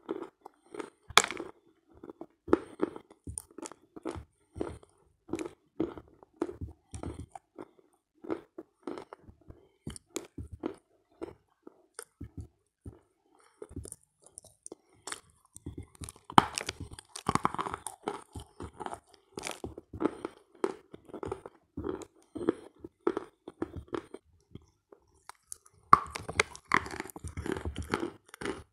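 Close-miked chewing of edible chalk-clay 'halva' (kaolin and clay), in irregular crunchy chews. There is a denser bout of crunching about sixteen seconds in, and a fresh bite into a piece near the end.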